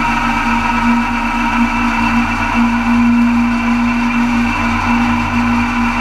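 John Deere 70 two-cylinder tractor running steadily under load, driving a Mott 88 flail mower through its PTO as the flail rotor chops tall thick grass. A loud, even machine din with a steady hum and whine.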